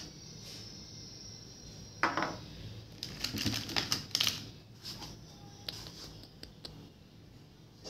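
Small plastic paint jars and their lids clicking and knocking as they are picked up and set down on a hard board: a knock about two seconds in, a quick run of clicks from about three to four seconds, then a few lighter taps.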